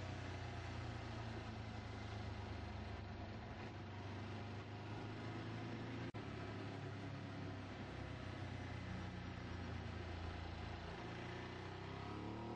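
Sport motorcycle engine running at steady road speed under steady wind and road noise, heard from a camcorder mounted on the bike's tank. The sound drops out for an instant about halfway, and near the end the engine pitch climbs as the bike accelerates.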